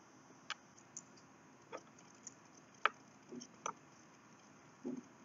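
Quiet room with about eight faint, irregularly spaced clicks and light taps. There is no berimbau playing.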